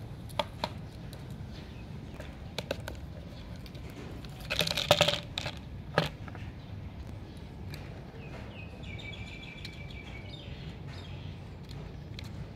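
Plastic mesh laundry basket knocking and scraping on concrete as a kitten paws and pushes it: a few light clicks, then a louder clattering rattle about five seconds in and a single knock a second later. A faint high chirp follows near the end, over a steady low background hum.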